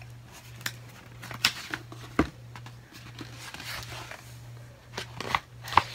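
Scattered taps and paper rustles of a hardcover book and its loose dust jacket being handled, with a sharper tap or two. A low steady hum runs underneath.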